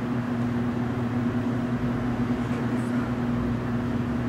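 Steady low hum of background room noise, unchanging, with no speech over it.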